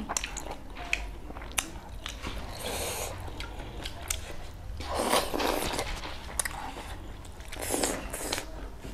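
Close-up chewing and eating mouth sounds from two people eating by hand, picked up by clip-on microphones, with many short sharp clicks and two louder bouts about five and about seven and a half seconds in.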